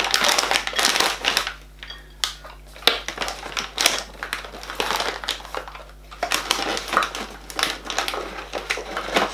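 Plastic packaging crinkling and rustling as it is handled, in irregular spells with a few sharp clicks.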